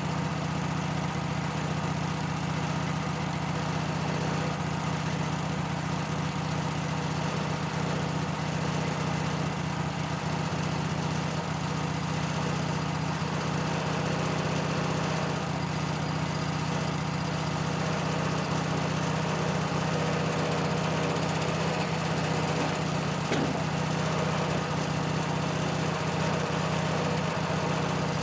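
Wood-Mizer LT-15 portable sawmill's engine running steadily at an even speed.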